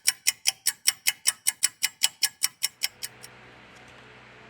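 Steady clock-like ticking, about five even ticks a second, that stops about three seconds in, leaving a faint steady hiss and hum.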